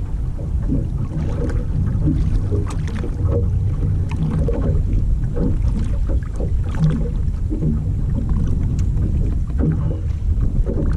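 Steady wind rumble on the microphone with water lapping against a fishing kayak, and faint scattered clicks.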